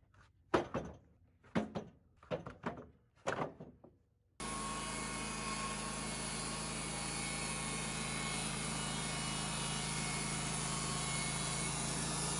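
A series of five or so hollow wooden thunks, then, starting abruptly about four seconds in, a Wood-Mizer sawmill's engine running steadily.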